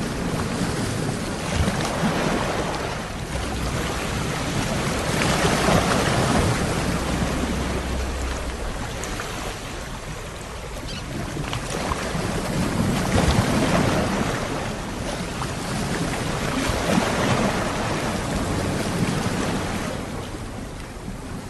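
Ocean waves breaking and washing ashore, the surf noise swelling and falling back every few seconds.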